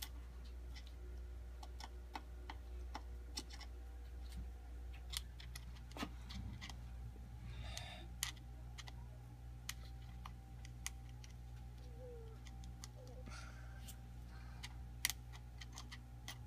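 Small hard clicks and taps at irregular intervals as weight pieces are set and pressed into epoxy in the pocket of a pinewood derby car with a pick, the sharpest a little before the end, over a steady low hum.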